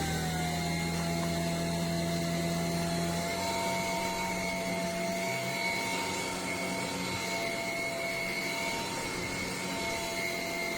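Dreame Z20 cordless stick vacuum's motor running steadily with a high whine, its pitch settling lower about half a second in and starting to wind down at the very end.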